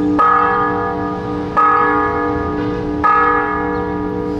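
Church bell ringing, struck about every second and a half, each stroke ringing on until the next.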